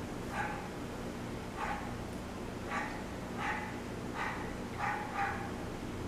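A dog barking in short, repeated yips, roughly one a second, with two coming close together about five seconds in.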